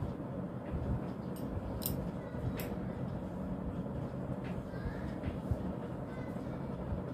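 A steady low rumble with a few light clicks and knocks about two seconds in.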